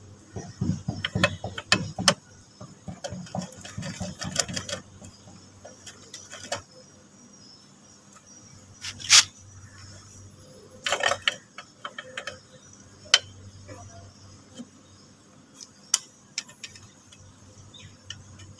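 Scattered metal clicks, clinks and knocks as a scooter shock absorber's lower eye is pushed and worked against its mounting bracket to line up the bolt hole, with a socket ratchet and bolt being handled. The knocks come in quick bunches in the first few seconds, then as single sharp clicks spaced a few seconds apart.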